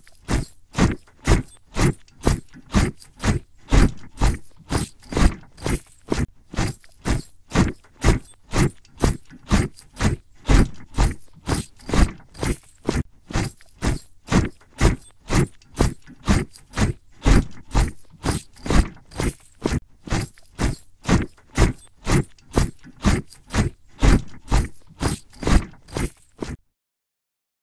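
Soldiers' boots marching in step, a steady tramp of about two steps a second that stops abruptly near the end.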